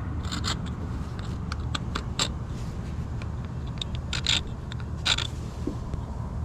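Irregular strokes of a hand scraper scraping old paint off metal, over a steady low hum, with the strongest strokes about two, four and five seconds in.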